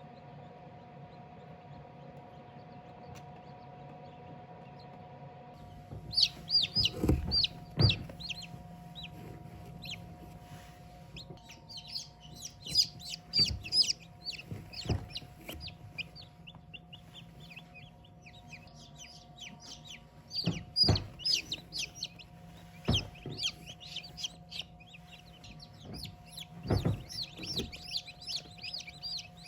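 Chickens calling: bursts of short, high, falling peeps that start about six seconds in, over a steady hum, with several dull knocks among them.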